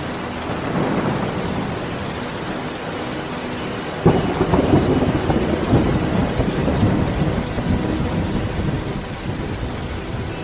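Steady rain, with a sudden thunderclap about four seconds in that rolls on as rumbling thunder for several seconds.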